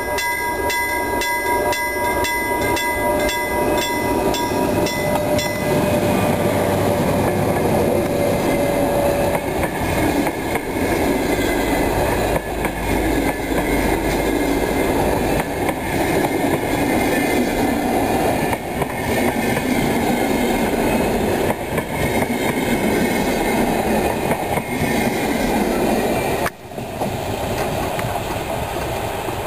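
Sr1 electric locomotive and its InterCity coaches running past at close range, the wheels on the rails making a steady loud noise. A level-crossing warning bell rings about twice a second for the first five seconds or so until the train noise covers it. The noise drops suddenly near the end as the last coach clears.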